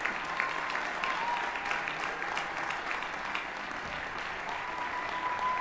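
Audience applauding in a concert hall, dense continuous clapping. A thin steady tone sounds over it briefly early on and again near the end.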